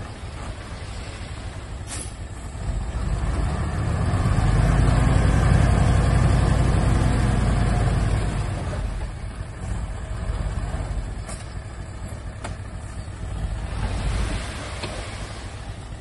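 Dump truck engine revving up about three seconds in and held for several seconds while the hydraulic hoist raises the bed to tip out its load, then dropping back to idle. A few sharp knocks from the truck are heard along the way.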